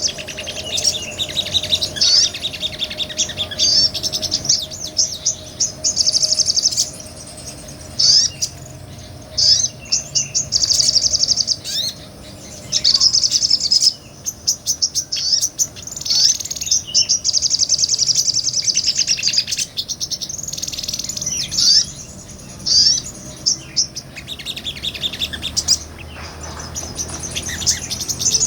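A sogon, a small nectar-feeding bird, singing in rapid, high-pitched chattering trills. The phrases come in bursts of one to two seconds with short pauses between them, the long running song that bird keepers play to tutor songbirds.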